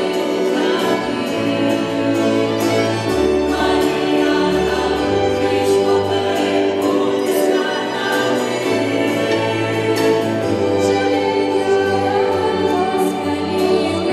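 Small mixed vocal group singing a devotional song in harmony, accompanied by cello, violin and piano.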